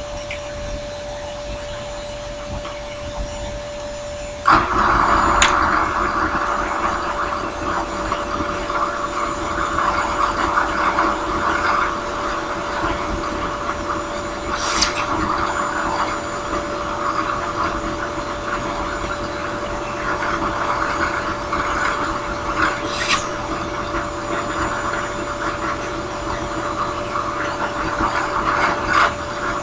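Drill press running a small sanding drum, a steady motor hum throughout. About four seconds in, a wooden tobacco pipe bowl is pressed against the spinning drum and the rough rasp of wood being sanded starts and carries on, with a couple of sharp ticks along the way.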